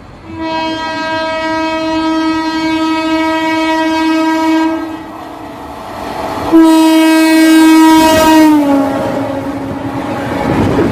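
Indian Railways diesel locomotive horn sounding two long, steady blasts, the second sliding down in pitch near its end as the locomotive passes. Then comes the rising rumble of the passing train.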